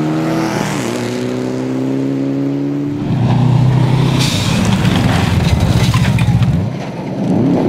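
Rally cars at full throttle on a gravel stage: first a rally car's engine holding a steady high note with one quick gear change as it drives away, then, about three seconds in, a Subaru Impreza's flat-four engine running louder and rougher as it slides through a bend, with gravel hissing under the tyres. Near the end the engine note drops briefly, then climbs again.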